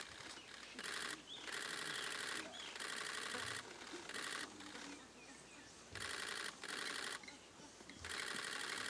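Repeated bursts of rapid-fire camera shutter clicks, each burst lasting under a second with short pauses between them.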